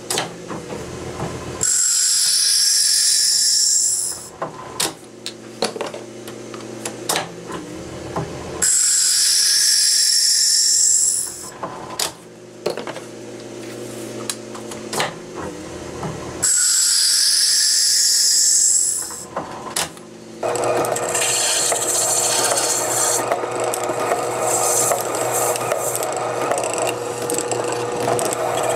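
A small lathe turns a fountain pen barrel while a tool works against it in three loud passes of a few seconds each. Between the passes there are small handling clicks. About twenty seconds in, a steady abrasive scraping starts as the barrel is sanded and its end rounded on the spinning lathe.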